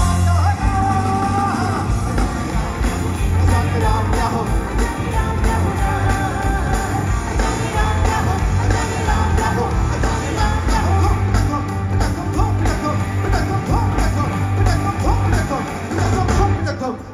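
A live rock band playing loud amplified music through a concert PA, with a lead vocal over electric guitars, keyboards and heavy bass.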